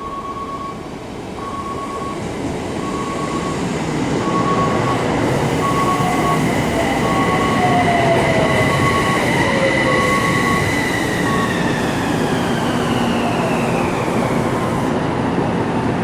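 An Odakyu electric commuter train pulls into the station and brakes, its traction motors whining in tones that slowly fall in pitch as it slows, over the rumble of the wheels. A short electronic beep repeats about every second and a half through the first two-thirds.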